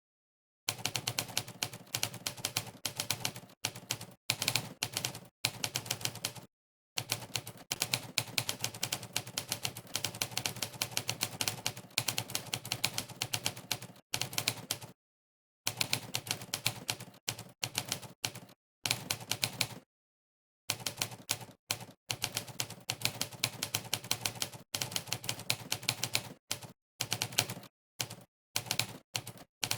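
Typewriter key-strike sound effect played once for every keypress, in fast runs of many clicks a second broken by brief pauses of total silence while the typist stops.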